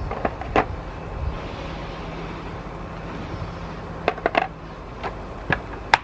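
Short metallic clinks and knocks of hand tools and engine parts being handled during engine assembly, a few at a time, over a steady low hum.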